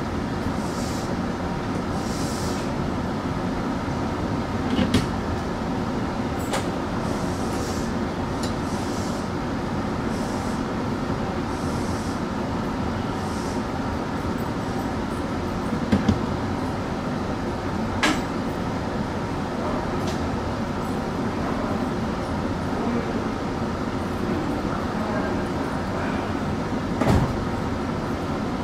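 Tsukuba Express TX-2000 series electric train running, heard from inside the cab: a steady rumble of wheels and motors, with a few sharp clicks from the track now and then.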